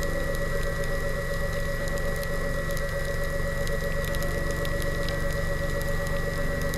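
Underwater scooter (diver propulsion vehicle) motor running steadily underwater: a constant whine over a low rumble, with scattered faint clicks.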